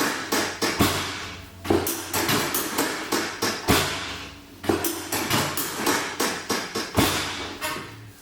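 Chiropractic percussive tapping on the patient's back: runs of sharp, quick taps at about four a second, in four runs that each start loud and fade, with short breaks between.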